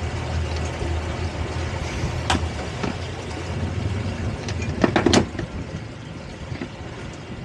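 Boat engine running at slow speed with a steady low hum that eases off partway through. A couple of sharp knocks come about five seconds in.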